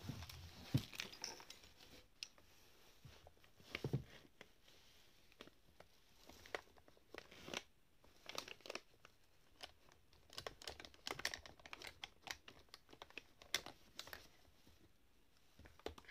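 Hand rummaging through a drawer of toiletries and a fabric makeup pouch: irregular rustling with small knocks and clicks as plastic bottles, boxes and makeup pencils are moved about.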